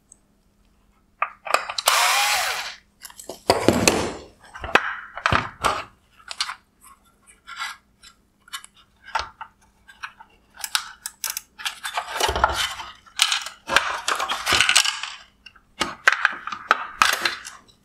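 Black plastic cover being unscrewed and worked off the LED drive unit of a Mercedes-Benz GLE LED headlight: irregular plastic scraping, creaking and sharp clicks as it is handled and pried free.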